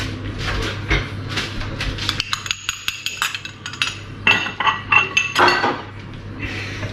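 Small glass pots clinking against each other and against a ceramic bowl as they are set down, a run of sharp clinks with a few briefly ringing chinks about halfway through.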